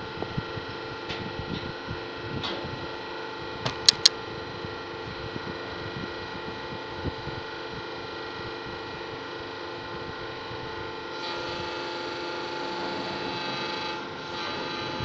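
A machine running steadily with a constant humming whine. Two sharp clicks come about four seconds in, and the running grows a little louder and brighter about eleven seconds in.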